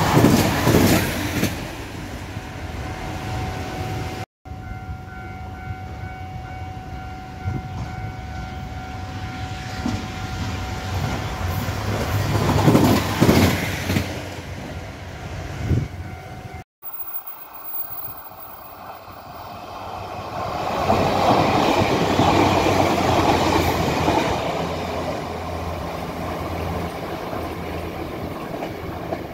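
Railway maintenance machines passing on the track in three cuts: the end of a large track tamping machine's pass, then a dynamic track stabilizer whose engine and wheels build to a peak about 13 seconds in, then after an abrupt cut a set of track inspection cars passing, loudest from about 21 to 24 seconds in.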